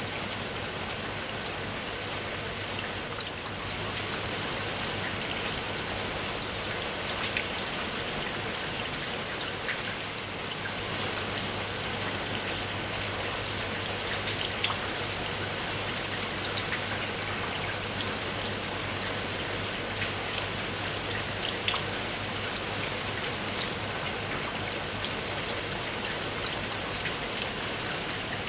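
Heavy rain falling steadily, with sharp individual drops hitting a hard surface close by throughout.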